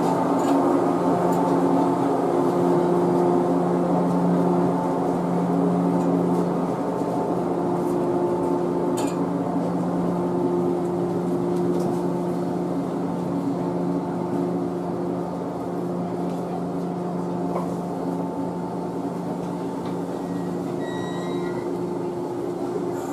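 Shinano Railway 115 series electric train rolling slowly past along the platform: a steady hum at a fixed pitch that fades gradually. A single sharp click comes about nine seconds in.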